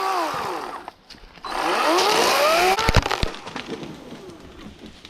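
Chainsaw cutting into a Virginia pine trunk, revved hard twice with a short drop between, then a few sharp cracks of the wood about three seconds in. The cut tree cracks but stays hung up.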